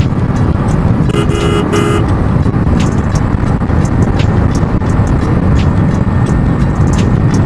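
Wind rushing over the microphone and the Hero Splendor Plus's single-cylinder engine running at highway cruising speed, with two short horn blasts about a second in.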